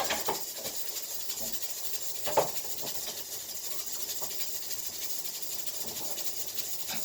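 Steady background hiss with a single short knock about two and a half seconds in.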